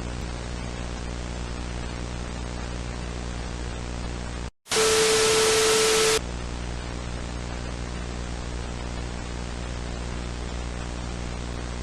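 Steady broadcast hiss over a low electrical hum. About four and a half seconds in it cuts out for a moment, then a loud burst of static with a steady tone plays for about a second and a half, and the hum and hiss come back.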